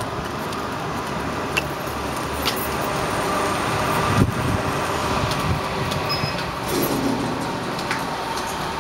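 Steady outdoor urban background noise with traffic, broken by scattered sharp clicks and one louder thump about four seconds in.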